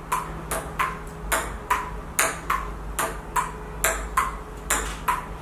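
Ping-pong rally: a plastic table-tennis ball clicking in a steady rhythm off the tabletop and a paddle, about two to three hits a second, with a faint low hum underneath.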